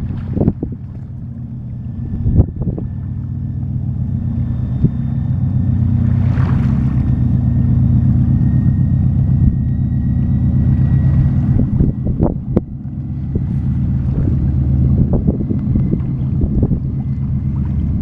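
A boat's engine running with a steady low drone, growing louder over the first several seconds, dipping briefly past the middle and rising again. Wind buffets the microphone throughout.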